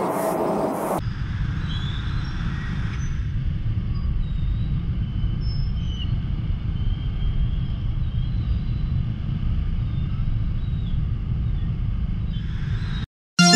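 Steady low rumble of a scooter riding slowly through congested motorcycle traffic on a wet road, with engine and road noise. Near the end the sound cuts off abruptly and music starts.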